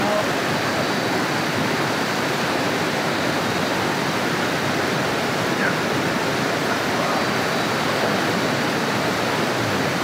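Waterfall and stream water cascading over rocks: a steady, unbroken rush of water.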